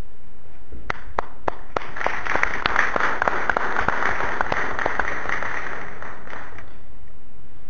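Audience applauding: a few separate claps, then a short burst of applause that dies away about six and a half seconds in.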